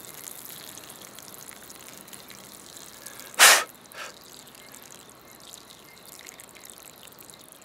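Water dribbling out of a freshly punched hole in a pressurized half-inch poly drip-irrigation mainline. The water is left running so that dirt is flushed from the hole before a barb valve goes in. A short, loud rush of noise comes about three and a half seconds in, with a fainter one half a second later.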